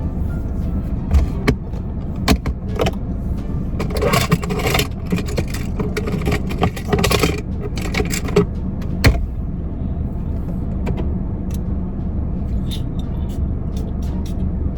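Steady low rumble inside a moving car's cabin. Scattered sharp clicks sound over it, and a stretch of jangling and rustling comes through in the middle.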